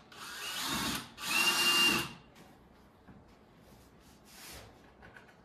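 Cordless drill on its lowest torque setting driving screws into pre-drilled melamine panels: two short runs of about a second each, the second louder with a steady whine. The screws are run in close but not fully seated.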